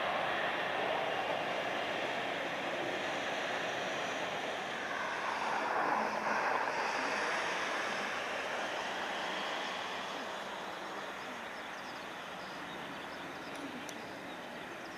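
Jet engines of an Asia Cargo Airlines Boeing 737 freighter on its landing roll-out just after touchdown. A steady rushing noise swells about six seconds in, then slowly fades as the aircraft slows.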